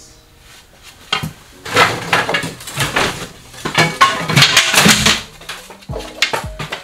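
Long wooden strips knocking and clattering against each other as they are pulled from a stack and handled, a busy run of sharp knocks starting about a second in and easing off near the end.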